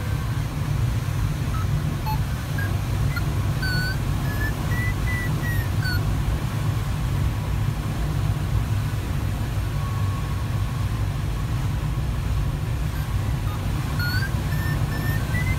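Steady low rumble of airflow around the cockpit of a Sparrowhawk ultralight glider in flight. Twice, a variometer's beeping tone rises in pitch and falls back, signalling lift as the glider climbs.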